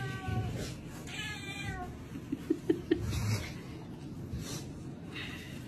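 Kitten mewing: one long, high, wavering mew that falls slightly, about a second in. It is followed near the middle by three or four very short, sharp sounds, the loudest in the clip.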